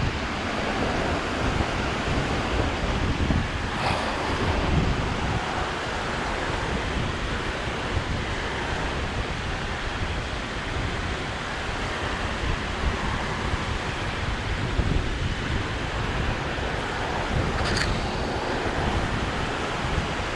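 Steady rushing of water pouring from a canal overflow, with wind buffeting the microphone. Two light clicks, about four seconds in and near the end.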